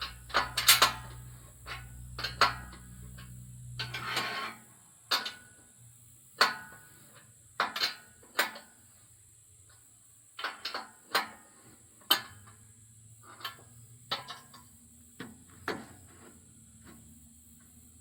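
Irregular sharp metallic clanks and knocks, some in quick clusters: metal tools and parts being handled against the steel frame of a sawmill during adjustment. A low hum underlies the first four seconds.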